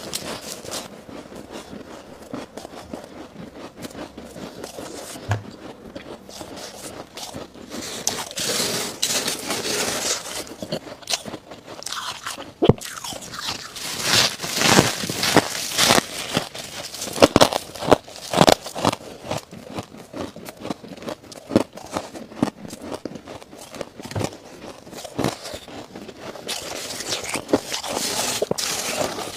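Chest-freezer frost being bitten and chewed: many crisp, sharp crunches, densest and loudest in the middle. Near the end a gloved hand scrapes and gathers more frost from the freezer bed.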